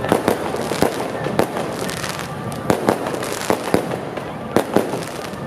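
Firecrackers going off in irregular sharp bangs, some in quick pairs, over a steady background hiss.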